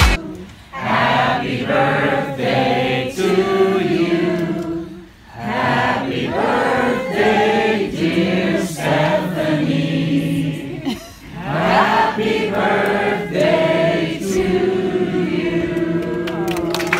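A song sung live, in long held phrases with short breaks about 5 and 11 seconds in.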